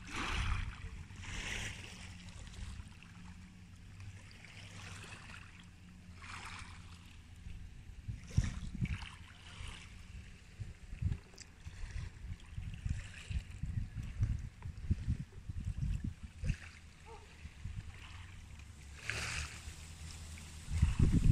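Small waves washing softly onto a pebble beach in a few gentle swells, over the low rumble of wind on the microphone, which gusts in the middle.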